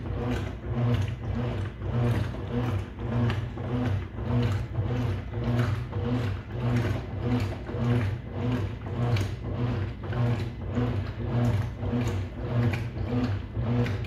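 Consul Maré Super 10 kg top-loading washing machine agitating. The motor hum swells and drops in an even rhythm, about two strokes a second, with a knock at each stroke as the agitator swings back and forth.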